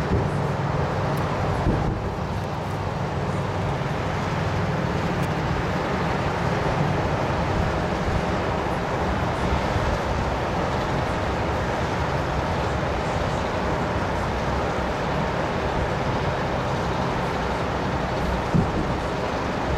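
Steady road traffic noise with a low rumble from the city streets below, and a single short thump near the end.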